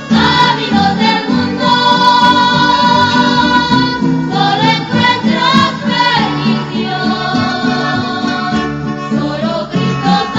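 A Christian hymn: singing voices with instrumental accompaniment, the melody moving in long held notes.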